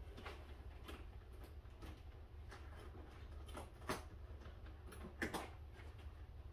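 Scattered knocks, clicks and rustles of gear being handled and moved about in open bags, over a low steady hum. The two sharpest knocks come about four and five seconds in.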